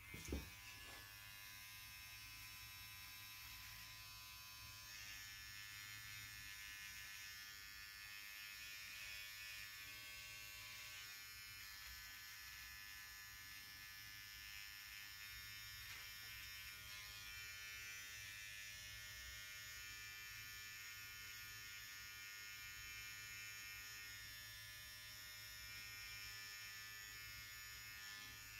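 Cordless electric hair trimmer switched on with a click, then running with a steady buzz while it edges a beard and mustache.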